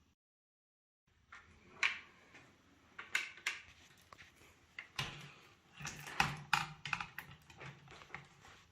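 Irregular clicks, taps and light knocks of computer hardware being handled during assembly, denser and with a few duller knocks in the second half.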